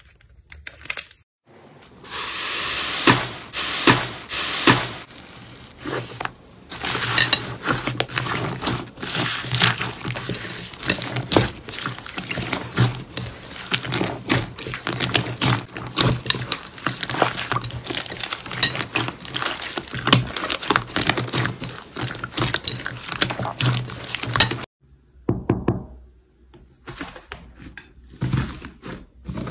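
Slime being squeezed and pressed by hand, its crunchy crust cracking and the soft slime squishing, in rapid runs of small crackling and popping clicks.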